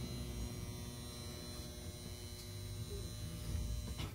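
Large passenger elevator running, a steady electric hum and buzz over a low rumble inside the car.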